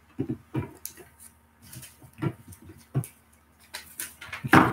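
Scattered short clicks and soft knocks at irregular intervals, a stronger one near the end.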